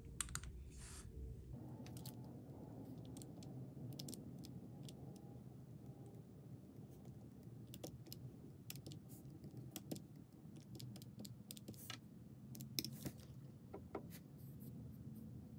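Soft, irregular clicks of plastic calculator keys being tapped as numbers are added up.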